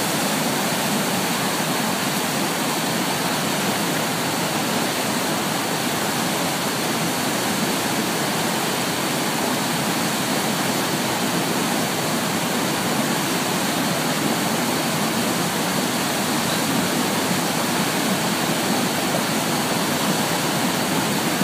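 Water rushing through open dam floodgates and spilling over the spillway: a steady, unbroken noise of heavy white water.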